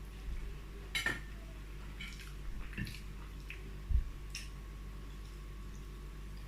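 Eating sounds while chewing soft chicken wings: a few scattered wet mouth smacks and clicks, the strongest about a second in and about four seconds in.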